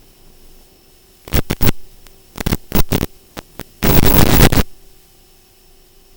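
FPV goggles' DVR audio: low hiss with a faint steady hum, broken by loud crackling bursts of static in four clusters, the longest and loudest about four seconds in.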